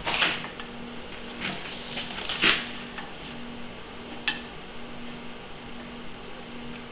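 Steel clanking as cut pieces of steel angle and tools are handled on a steel welding table: a few separate metallic knocks with a short ring, the loudest about two and a half seconds in.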